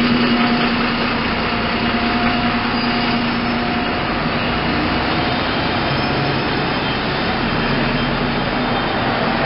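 Double-decker bus engine running close alongside, a steady hum over the noise of street traffic.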